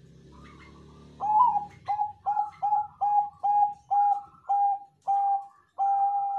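Zebra dove (perkutut Bangkok) singing its cooing song. It starts about a second in with a run of about ten short staccato coos, all at one pitch and spaced a little further apart as it goes. The last coo is drawn out.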